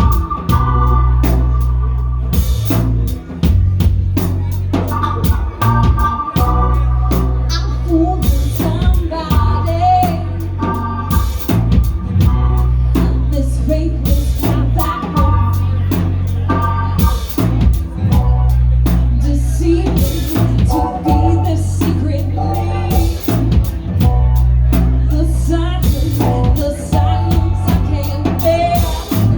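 A band playing: drum kit, a heavy bass line that changes note every couple of seconds, and a singer's voice over it.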